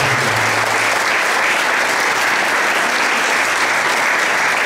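Audience applauding steadily at the close of a speech.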